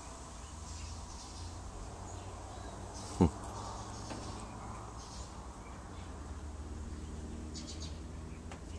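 Quiet outdoor background with faint scattered chirps and a low steady rumble. About three seconds in comes one short, loud sound that drops quickly in pitch.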